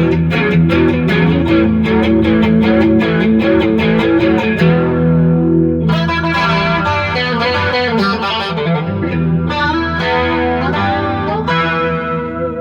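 Electric guitar played through a Marshall MG100HDFX solid-state amp head on its overdrive 1 channel, with a distorted tone. Quick picked notes for about the first five seconds, then ringing chords from about six seconds in.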